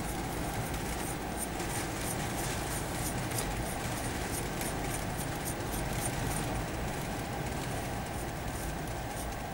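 Steady whirring of a running machine, with faint high ticks repeating evenly about three times a second.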